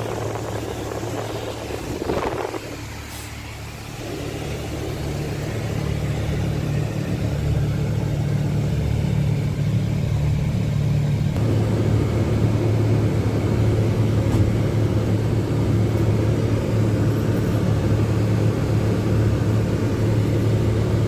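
Steady low drone of a moving double-decker sleeper bus heard from inside the cabin: engine and road rumble, growing louder about four seconds in. A couple of brief rustles near the start.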